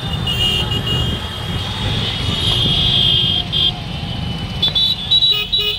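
Heavy road traffic of motorcycles and other vehicles: a steady low engine and road rumble, with high-pitched horn tones sounding for a few seconds early on and short repeated toots near the end, and crowd voices in the background.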